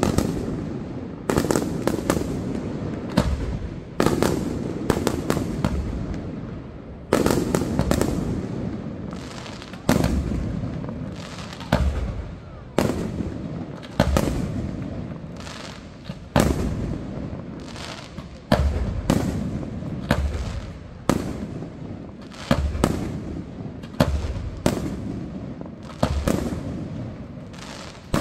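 Aerial firework shells bursting one after another, a sharp bang every one to two seconds, each trailing off in a low rolling echo.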